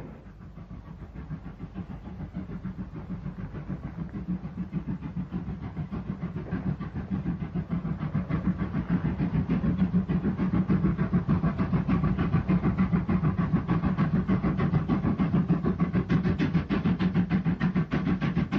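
Great Western 57XX pannier tank steam locomotives barking up the steep 1-in-30 incline: rapid, regular exhaust beats under heavy load. The beats grow louder over the first half and then stay loud.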